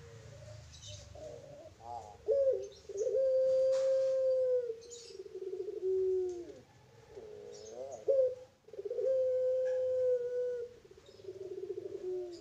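Caged puter pelung, the long-cooing Indonesian strain of ringneck (Barbary) dove, cooing: two long drawn-out coos, one about two seconds in and one about eight seconds in. Each is a short rising note, then a long steady note, then a drop to a lower held note.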